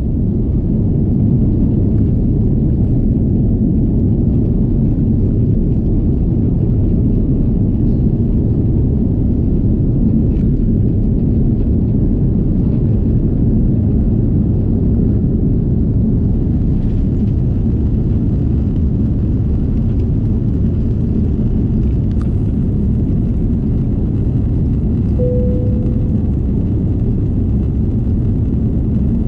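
Airbus A330 cabin noise: a steady low rumble of engines and airflow heard from inside the passenger cabin. A short single tone sounds briefly near the end.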